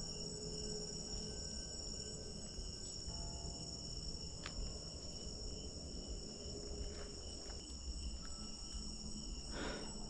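Night insect chorus: steady high trilling at several pitches, with a few faint clicks and a brief rustle near the end.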